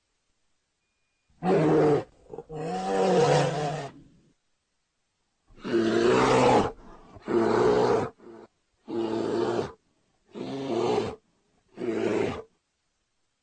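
Bear calls: a series of about seven loud calls, each a second or two long, separated by short silences, the later ones shorter.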